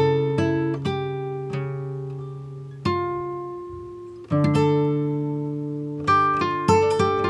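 Background music: slow, sparse plucked-string notes and chords, each ringing out and fading before the next.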